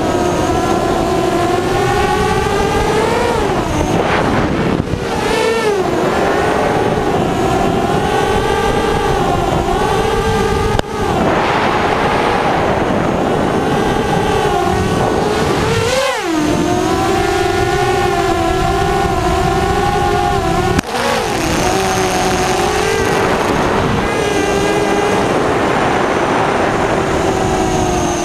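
A motor running at high speed, its pitch wavering up and down and dipping briefly a few times.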